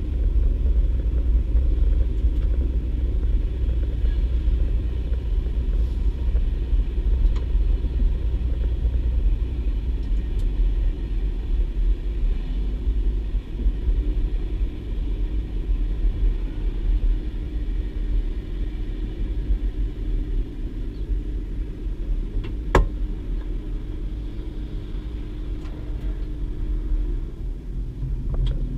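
Cabin sound of a DB Class 612 diesel multiple unit under way: a steady low rumble of its diesel engines and running gear. A humming tone joins about halfway and drops out shortly before the end, and there is one sharp knock about three-quarters through.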